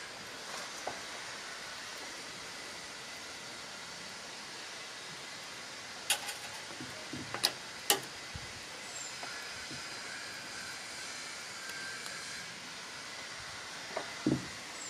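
Steady outdoor background hiss, broken by a few sharp knocks: three from about six to eight seconds in and two more near the end.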